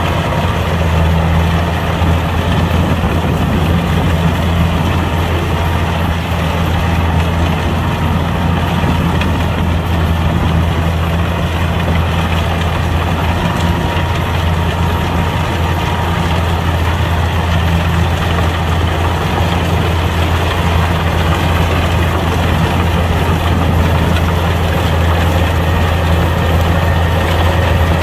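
Kubota combine harvester's diesel engine running steadily, a constant low hum with no change in speed.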